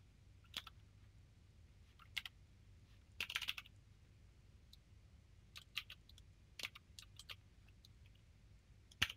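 Scattered clicks of a computer keyboard and mouse: single keystrokes a second or more apart, with a quick run of several keys about three seconds in.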